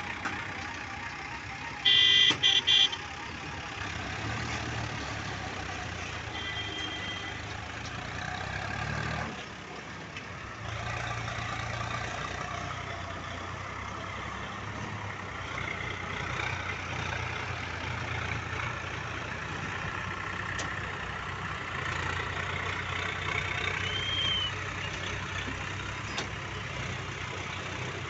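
Diesel tractor engines running steadily as sugarcane-laden tractor-trailers move through the yard. A horn sounds in a few short, loud blasts about two seconds in.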